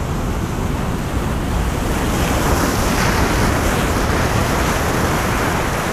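A big ocean wave breaking over the rocks and surging across them as foaming whitewater: a loud, steady rush of surf, with deep rumble from the water washing over the microphone.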